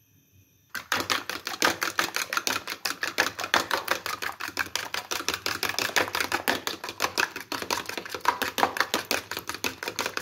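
Eggs being beaten with a fork in a bowl: the fork clicks against the bowl fast and evenly, several strokes a second, starting about a second in.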